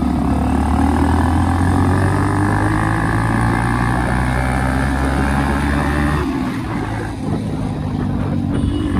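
Modified Hero Splendor's single-cylinder four-stroke engine running loud through an aftermarket RX-style silencer while riding, a steady note that drops away suddenly about six seconds in.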